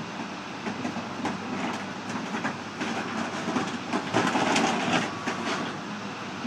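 John Deere backhoe running steadily, with irregular clattering and crunching as it works, the clatter loudest about four to five and a half seconds in.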